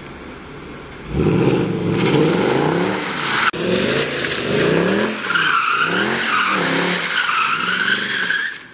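Mercedes C63 AMG (W204) 6.3-litre V8 revving hard in repeated rising and falling sweeps as the rear-wheel-drive car is thrown round in a slide. Tyres squeal from about five seconds in. The sound breaks off suddenly near the end.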